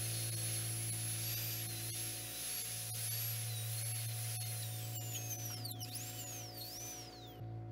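High-speed dental handpiece whining as its bur cuts a replica front tooth. The pitch wavers, then sags and swoops several times under load before the whine falls away and stops shortly before the end. A steady low hum runs underneath.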